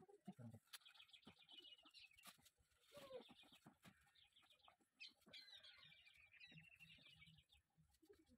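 Faint chirping of birds in quick repeated trills, in three spells, with scattered faint clicks.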